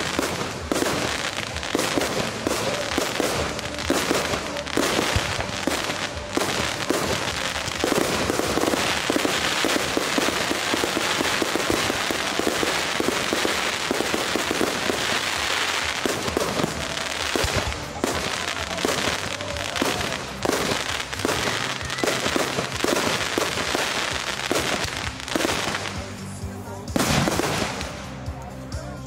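Fireworks display: many sharp bangs one after another, with a stretch of dense crackling in the middle, over music.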